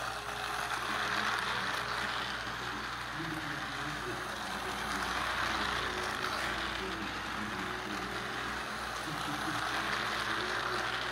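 Battery-powered toy train whirring as its small electric motor drives it round a plastic track, its wheels clattering on the rails; the sound swells every four to five seconds as the train passes close by on each lap.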